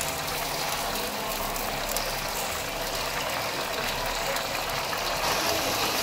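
Fresh egg noodles deep-frying in a wok of hot oil, a steady sizzle and bubbling, over the low rumble of the wok's gas burner.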